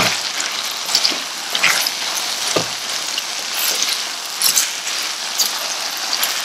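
Sliced onion, sweet peppers and tomatoes sizzling in hot olive oil over high heat, with a steady hiss. A wooden spoon stirring them gives occasional knocks and scrapes against the enamelled pan.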